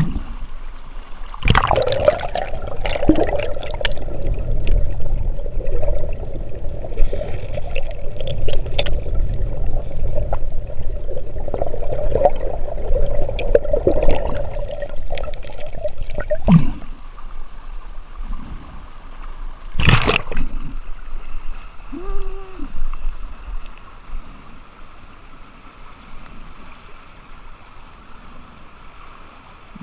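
Flowing river water heard with the camera under the surface: a muffled, churning gurgle. About sixteen seconds in it gives way to the lighter sound of the stream running in the open, with one sharp splash about twenty seconds in.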